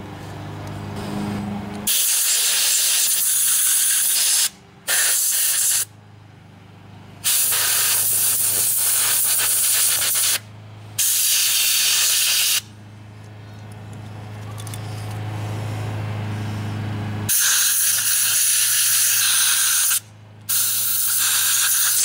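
Compressed air from a blow gun blasting through a Briggs & Stratton carburetor's jets and passages to clear out sediment: six loud hissing blasts of one to three seconds, in three pairs. A steady low hum runs underneath.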